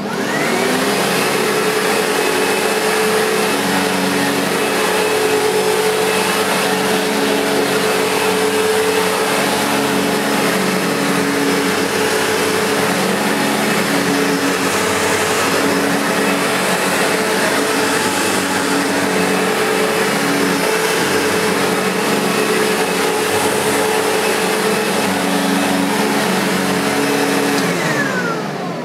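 Sebo-built Ensign SM2 commercial bagged upright vacuum cleaner switched on, its motor spinning up with a rising whine. It runs steadily while pushed back and forth over carpet, then is switched off near the end and winds down with a falling whine. A sweet-sounding, healthy-running motor.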